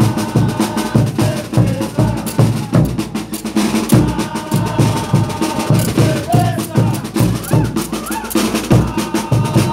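Sikuri band playing: zampoña (siku) panpipes carry a held melody over a steady beat of bass drums, snare drums and clashing hand cymbals.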